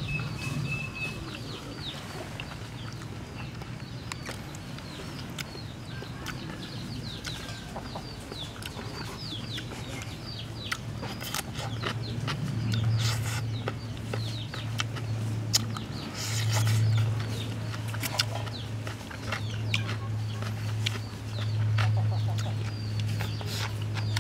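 Chickens clucking and small birds chirping, with a low steady hum coming in about halfway.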